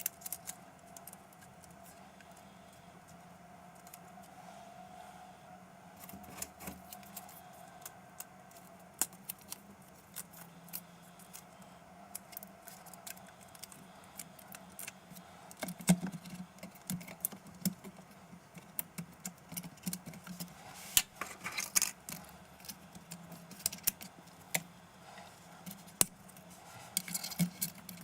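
Irregular small clicks, taps and light rattles of hand work on a laptop's parts and tools, over a faint steady hum. The clicking grows busier about halfway through.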